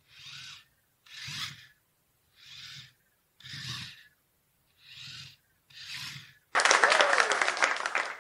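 Anki Vector robot's small tread motors whirring in short bursts, about one every 1.2 seconds, as it drives and turns in steps. Near the end a much louder, noisy sound starts and lasts about a second and a half before it cuts off suddenly.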